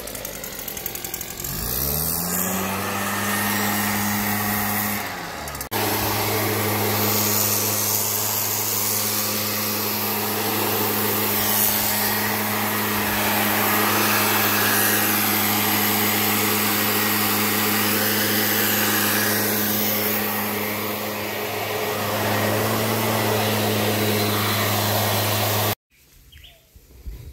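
Gas-powered leaf blower running, its engine revving up about two seconds in and dropping briefly near five seconds, then holding a steady drone with a rushing air noise; it cuts off suddenly near the end.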